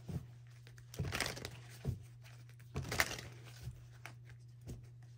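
A deck of oracle cards being shuffled by hand, in several short rustling bursts, the loudest about one and three seconds in, over a steady low hum.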